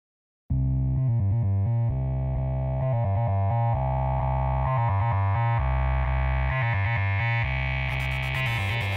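Synthesizer music with a heavy bass line and changing chords, starting about half a second in; a fast run of crisp ticks like hi-hat hits joins near the end.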